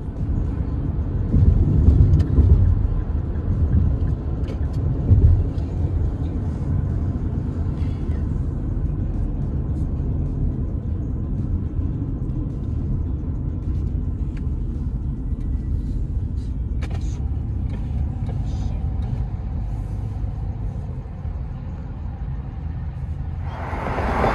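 Steady low rumble of road and tyre noise from a car driving on a highway, heard from inside the car. A little before the end it turns suddenly louder and hissier.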